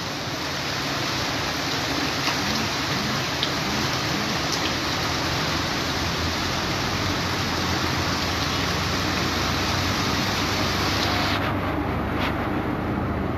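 Steady rush of floodwater and rain over a flooded street, with vehicles including a small truck driving slowly through the water. The high hiss thins out sharply near the end.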